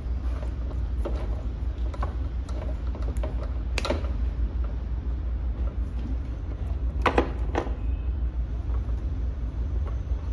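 Electrical tape being pulled off its roll and wound around wire connections, with short crackles, a sharper tearing crackle about four seconds in and two more around seven seconds in, plus the small clicks of wires and terminals being handled. A steady low hum runs underneath.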